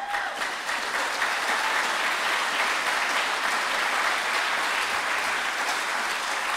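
Audience applauding, a steady wash of clapping that eases off slightly near the end.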